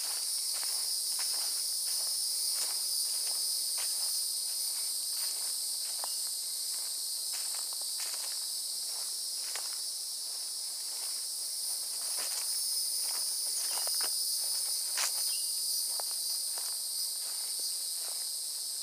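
Footsteps crunching on a dirt forest trail covered in dry leaf litter at a steady walking pace. Throughout, a steady high-pitched chorus of insects.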